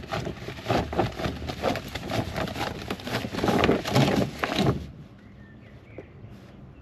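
Grid-reinforced plastic greenhouse sheeting crinkling and rustling as it is handled and lifted, stopping suddenly about five seconds in. A few faint bird chirps follow.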